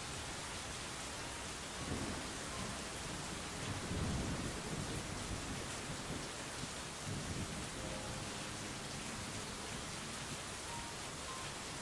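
Steady rain hiss, with deep rolls of thunder swelling up about two seconds in, again around four to five seconds and near seven seconds.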